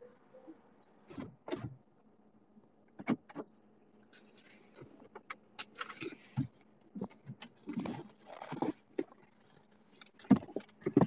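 Irregular light clicks, taps and rustling from footsteps and from a handheld phone and clothing being moved about while someone walks.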